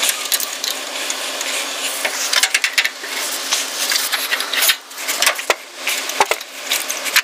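Hand tools and steel locking wire scraping and clicking against metal as the wire is cut and pulled out through the heads of the hood bolts. It is a thin, scratchy rasp broken by many sharp clicks.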